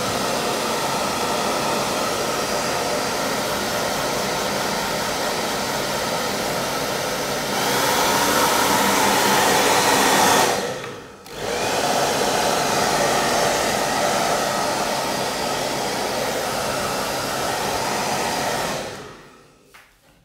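Hand-held hair dryer blowing steadily, drying wet watercolour paint on paper. It gets louder for a few seconds around the middle, cuts out briefly, starts again, and is switched off near the end.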